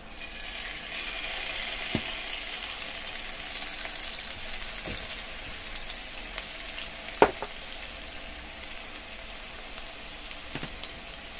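Raw chicken breast pieces sizzling in hot oil in a non-stick frying pan as they are laid in one by one. The sizzling sets in at once and keeps up, with a few sharp clicks of metal tongs, the loudest about seven seconds in.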